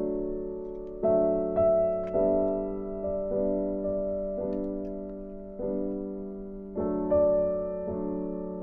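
Slow background piano music: chords struck about once a second, each left to fade before the next.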